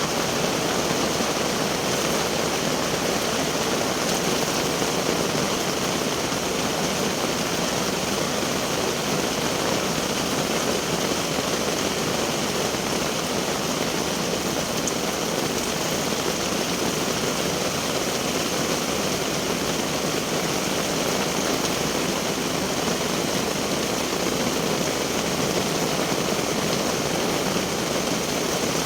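Steady rain falling: an even, unbroken rushing hiss.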